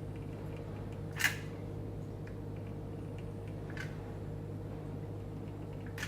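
Steady low electrical hum of room tone, broken by a sharp click about a second in and a fainter click a few seconds later.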